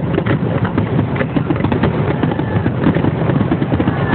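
Fireworks bursting and crackling: a dense, continuous run of rapid pops over a deep rumble of bangs, heard through a phone's microphone.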